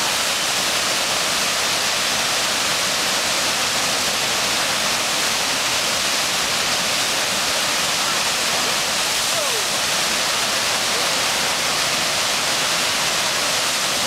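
Steady rushing of whitewater from a fast river standing wave, churning over a ledge at an even level.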